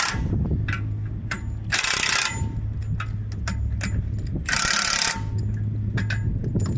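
Short bursts of air hiss about every two to three seconds, over a steady low engine hum, with scattered light clicks and knocks.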